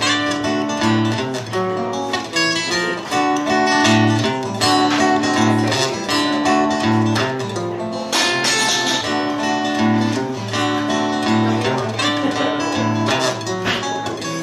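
Solo steel-string acoustic guitar playing strummed chords that ring on between strokes, with no singing.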